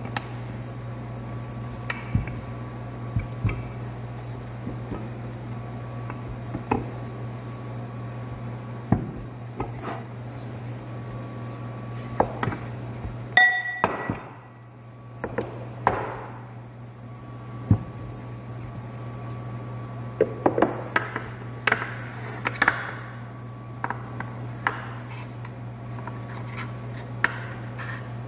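Scattered knocks and clinks of a wooden rolling pin rolling out samosa wrapper dough on a floured counter, with one brief ringing ping about halfway through, over a steady low hum.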